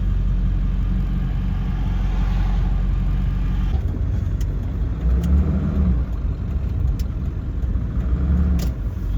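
Engine running steadily with a low hum, its note shifting a little under halfway through, and a few sharp clicks or knocks over it.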